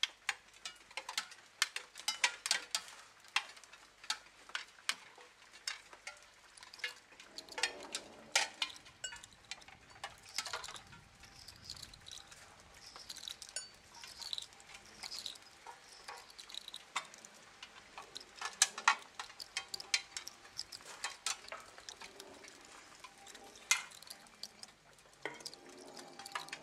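Sparse, irregular sharp clicks and taps, with a few short high chirping glides around the middle and a brief low rumble about eight seconds in.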